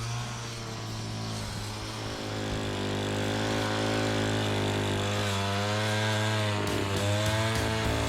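Small petrol engine of a grass-cutting machine running, its pitch wavering up and down as it works, a little louder from about two and a half seconds in.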